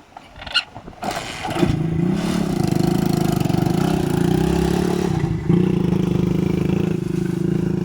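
An engine starts with a short clatter about a second in, then runs steadily with an even pulsing hum, dipping briefly midway.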